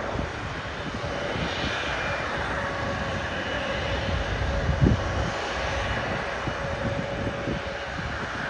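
Jet airliner engines at takeoff power, a steady rush of engine noise with a held whining tone.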